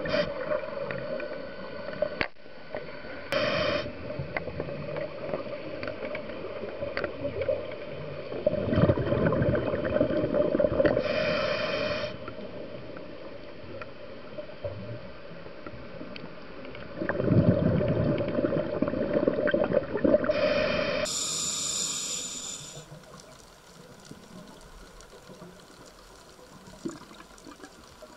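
Scuba diver breathing through a regulator: long bubbling rushes of exhaled air, each followed by a short hiss of inhalation, over a steady hum. About two-thirds of the way through the sound changes abruptly to a quieter underwater background.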